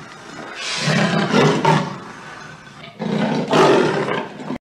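Big cat roaring and growling: one call trailing off at the start, then two more long growling roars, the second one near the end.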